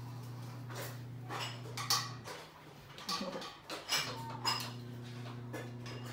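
Metal table parts and hardware clinking and knocking against each other as they are handled during assembly, about a dozen irregular sharp knocks. A steady low hum runs underneath and stops for about two seconds midway.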